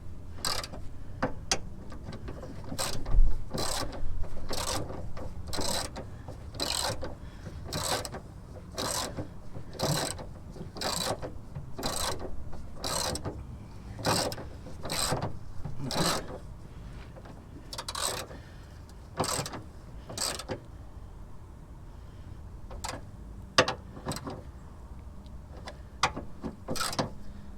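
Socket ratchet clicking as bolts are wound in, in quick strokes about twice a second, thinning to a few scattered strokes near the end as the bolts are tightened home.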